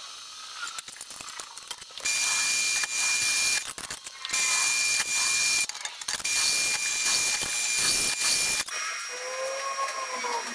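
Drill press boring holes through a steel plate: three loud stretches of harsh cutting noise under a steady high whine, each a second or two long. Quieter squeaky glides come before the first stretch and after the last.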